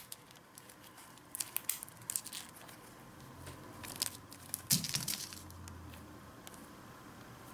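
Hercules beetle and giant stag beetle grappling on a bark log, making scattered sharp scratches and clicks as their claws and shells scrape over bark and the crinkly aluminium sheet around it. The loudest crackle comes about two-thirds of the way in, with a short low thud, as the stag beetle is thrown off the log.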